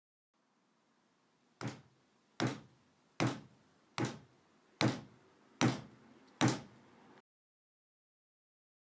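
Slow, evenly spaced knocking on a door, seven knocks that grow louder, made as a horror film sound effect.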